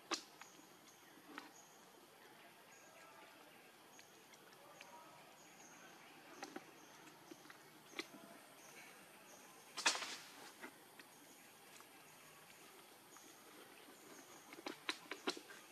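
Quiet outdoor ambience: a faint high chirping recurs every second or so, with scattered sharp clicks, the loudest about ten seconds in and a quick run of them near the end.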